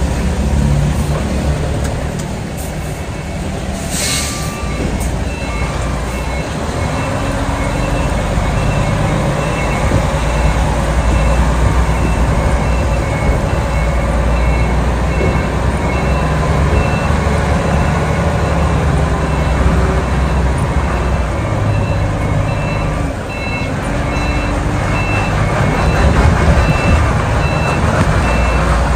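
Tractor-trailer's diesel engine running under load as the rig backs its trailer up a slope in heavy rain, with a reversing beeper pulsing steadily from about five seconds in and rain hissing throughout. A short hiss about four seconds in.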